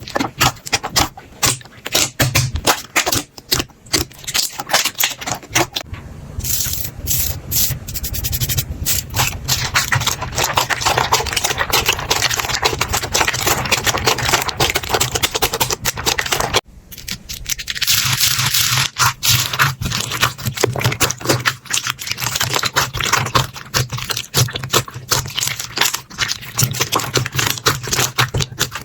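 Slime being squeezed and poked by hand, making dense rapid crackling, popping and clicking with a wet scraping rub. The sound cuts abruptly to another stretch of the same kind a little over halfway through.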